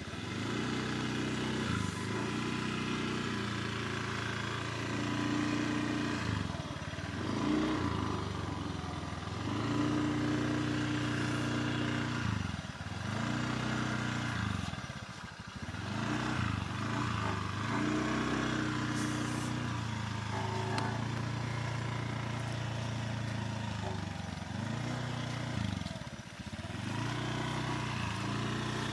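Small motor scooter's engine running as it is ridden, its pitch dipping and climbing back every few seconds as the throttle is eased off and opened again.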